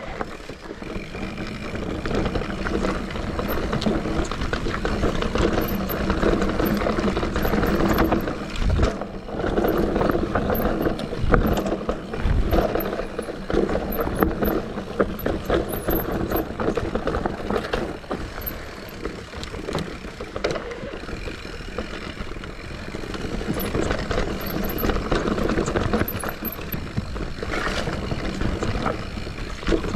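Santa Cruz Heckler mountain bike descending a rough forest trail: tyres rumbling over dirt and roots, with constant knocks and rattles from the bike.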